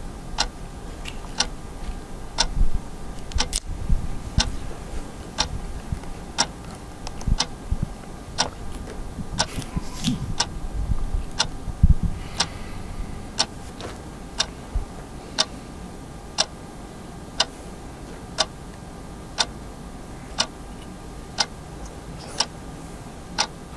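A clock ticking steadily, about one tick a second, over faint room noise with a few soft low thumps, the loudest about halfway through.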